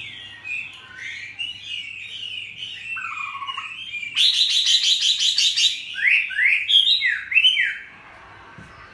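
Chinese hwamei (laughing thrush) singing a varied, whistled song. A loud run of fast repeated notes comes about four seconds in, then several slurred whistles, and the song stops near the end.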